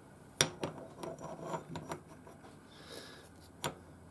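Metal half-nut parts of a Boxford lathe apron handled and fitted by hand: a sharp metal click about half a second in, then a run of lighter clicks and scrapes, and another click near the end.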